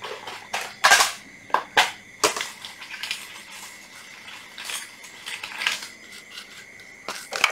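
Metal tools and parts being handled: a string of sharp clinks and knocks, the loudest about a second in, with quieter taps scattered through.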